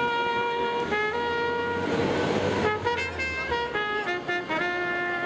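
Trumpets playing a melody of held notes that step up and down in pitch. A passing vehicle's rumble and hiss swell and fade in the middle.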